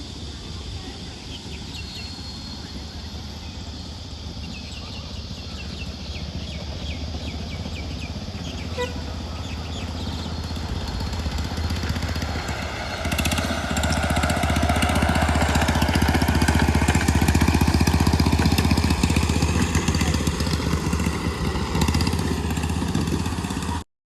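A vehicle engine running steadily, growing louder about halfway through, then cutting off suddenly just before the end.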